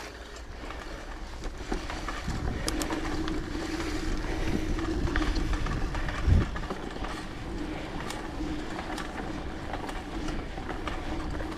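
Mountain bike rolling along a forest trail: a steady rumble of the tyres with rattling clicks from the bike over bumps, and a heavier knock about six seconds in.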